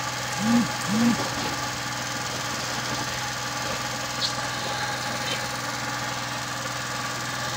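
A small engine running steadily, a constant hum with an even, unchanging pitch. Two short shouted calls come about half a second and a second in.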